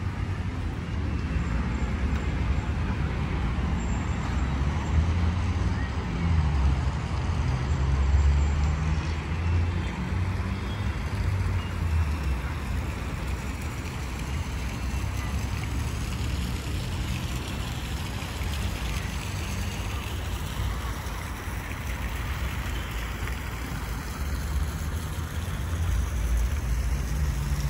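Street ambience dominated by passing road traffic: a steady wash of vehicle noise with an uneven low rumble.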